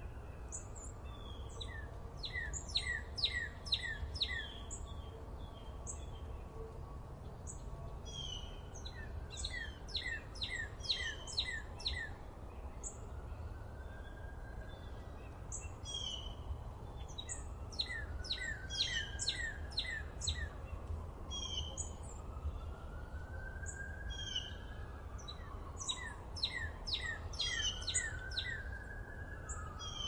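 Small birds chirping: runs of five or six quick, high, downward-sweeping chirps repeat every several seconds, with scattered single chirps between them. A steady low rumble lies underneath.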